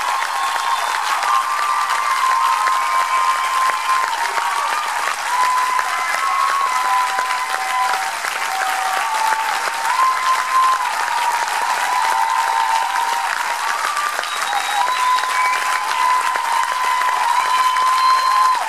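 Theatre audience applauding steadily and loudly, with a few long, held high tones sounding over the clapping.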